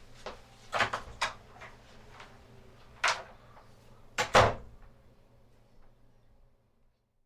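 A door being opened and shut: a few sharp clicks and knocks of the latch and handle, the loudest knock about four and a half seconds in, then the sound drops away to silence.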